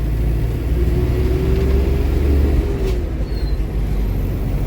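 Force Tempo Traveller van with its FM 2.6 diesel engine driving along, a steady low rumble of engine and road noise. A faint whine rises slightly in pitch about a second in and fades a couple of seconds later. There is no jerk or knock from the rear differential, which has a new crown wheel and pinion.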